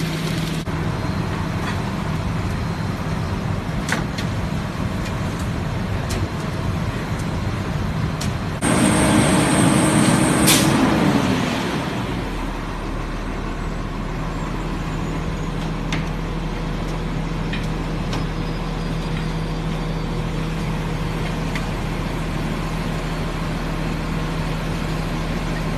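Steady road and engine noise of a moving vehicle, heard as a constant hum and rushing noise. About nine seconds in, a louder stretch of roughly three seconds rises over it, carrying a high steady tone and a lower tone that falls away as it fades.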